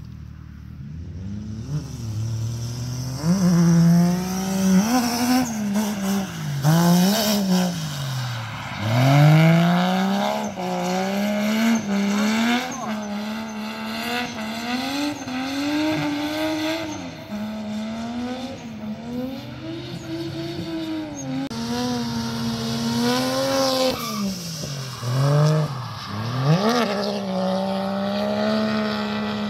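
Drift cars' engines revving hard, the pitch rising and falling again and again as the throttle is worked through slides, with tyre squeal.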